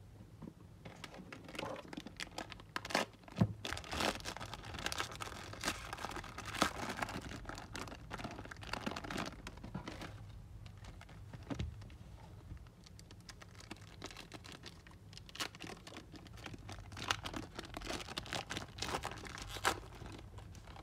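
Trading card pack wrappers being torn open and crinkled, with cards handled, in a run of irregular crackles and rustles.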